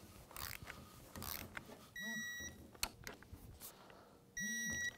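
Electronic torque wrench beeping twice, a steady high beep of about half a second each, signalling that the 6 mm bolt being tightened has reached its set torque of 7 foot-pounds. Faint clicks of the wrench on the bolts come between.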